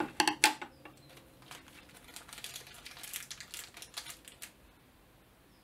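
Small plastic blind bag being opened and handled, crinkling irregularly, with a few sharp clicks right at the start and the rustling dying away near the end.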